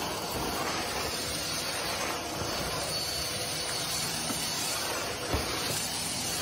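Stick vacuum cleaner running steadily: a rushing suction hiss with a faint high whine, and a single short bump about five seconds in.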